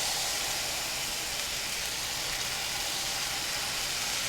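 Oats pancake batter sizzling steadily on a hot oiled skillet, a constant frying hiss.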